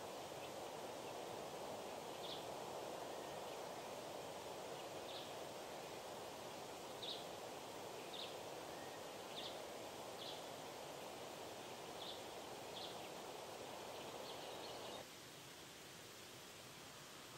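Outdoor ambience: a steady rustle of wind in leaves with a bird's short high chirps every second or two. About fifteen seconds in the rustle cuts off, leaving a fainter, even hiss.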